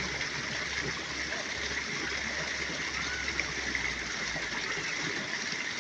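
Steady rush of running water from a small stream or channel, with faint distant voices behind it.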